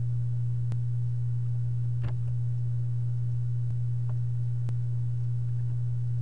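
Steady low electrical hum, one deep unbroken tone, with a few faint clicks scattered through it.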